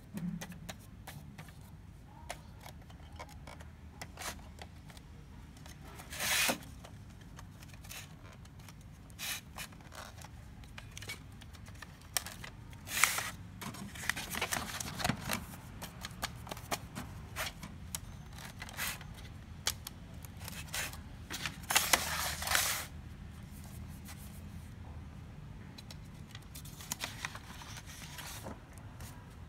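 Sheets of paper being handled and pushed into place in the plastic paper tray of an HP Color LaserJet M277n printer. Intermittent rustling and scraping with scattered clicks comes in short bursts several seconds apart.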